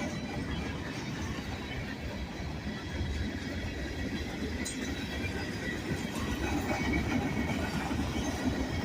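Manifest freight train rolling past: a steady rumble of wheels on the rails, with a faint high wheel squeal over it.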